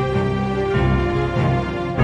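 AI-generated soundtrack music made with Udio: steady held notes over a low bass line that moves to a new note every half second or so.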